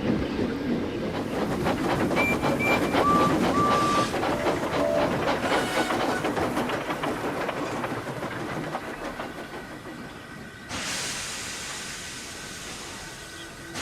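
Steam locomotive sound effects. For the first half there is fast, dense chuffing and clanking, with a few brief high tones about two to five seconds in; it fades, then a steady hiss of escaping steam starts suddenly near the end.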